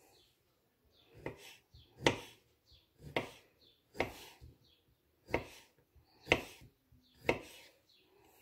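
Kitchen knife slicing pickled gherkins on a bamboo cutting board. Seven sharp chops, roughly one a second, as the blade cuts through and strikes the wood.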